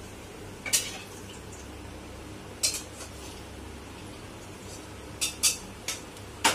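Metal utensil clinking against steel cookware: about six short, sharp clinks at irregular moments, three of them close together near the end, over a steady low hum.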